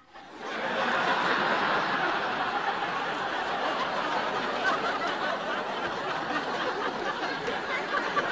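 Studio audience laughing, swelling up about half a second in and carrying on steadily.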